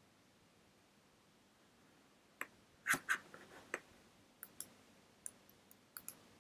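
Quiet room tone, then from about two and a half seconds in an irregular scatter of sharp clicks and light taps, the loudest near three seconds in.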